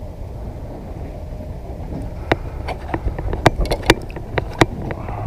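Water splashing as a walleye is held and moved at the surface beside the boat: a quick run of about ten sharp splashes and slaps from about two to four and a half seconds in, over a steady low rumble. The fish is being revived and is starting to move.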